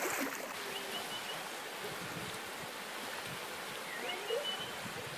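Steady rushing of the Loue river's flowing water.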